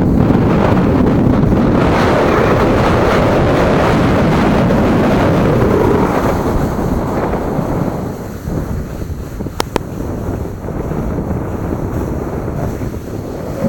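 Wind rushing over an action camera's microphone while skiing fast downhill, loud for the first eight seconds and then easing off. A brief sharp click comes about two-thirds of the way through.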